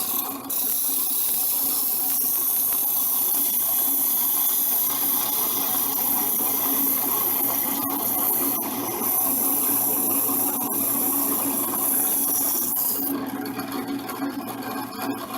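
Drill press motor running steadily, spinning a handle blank while abrasive cloth is pressed against it, giving a steady sanding hiss over the hum. The hiss stops for a couple of seconds near the end while the motor keeps running.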